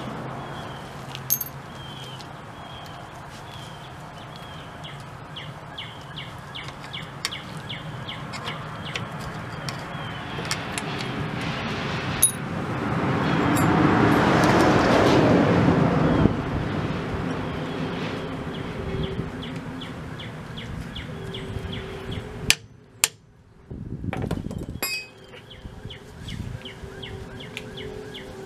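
Steel hand tools (wrench and screwdriver) clinking against the brake anchor pins and backing plate of an M109A3 truck as the horseshoe retaining clips are pried off, in scattered sharp clicks. A small bird chirps repeatedly in the background, and a rush of noise swells and fades around the middle.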